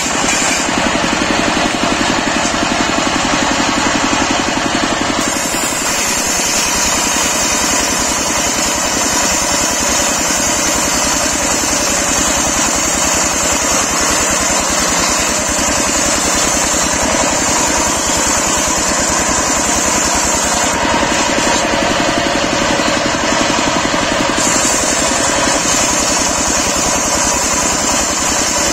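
Stationary single-cylinder engine running steadily, driving a belt-driven circular saw blade that rips a teak log into planks. The high saw hiss eases off for a few seconds past the two-thirds mark, then comes back as the cut goes on.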